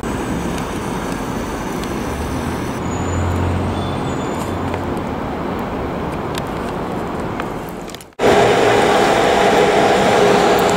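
City street traffic: a steady wash of road noise, with a vehicle's low engine hum swelling and fading about three seconds in. Just after eight seconds the sound cuts off abruptly and comes back as a louder steady drone with two steady tones in it.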